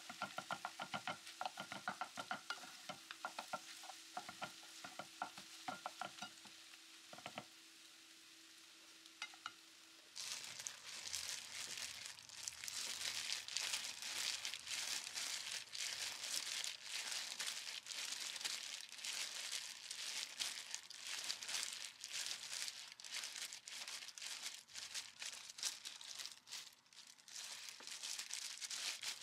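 Wooden spatula stirring and knocking fried rice around a frying pan, several quick scrapes and taps a second over a light sizzle. About ten seconds in it gives way to the continuous crinkling of disposable plastic gloves as hands squeeze the rice into balls.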